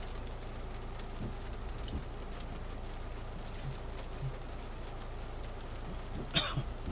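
Steady rain falling on a car's roof and windshield, heard from inside the car, with a few faint ticks of drops. Near the end a person coughs once, sharp and loud.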